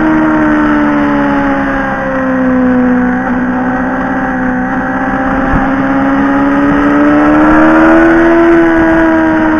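Motorcycle engine running under way as heard from the bike itself, over steady wind rush. The engine note drops about two seconds in, then climbs gradually and eases slightly near the end.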